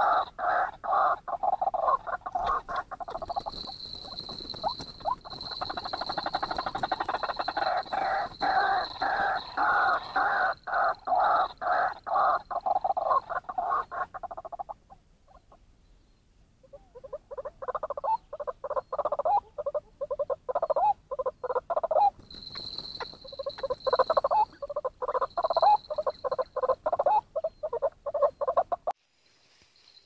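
White-breasted waterhen calling: long runs of rapidly repeated croaking notes, a few a second, with a break of about two seconds midway. The calling cuts off suddenly just before the end.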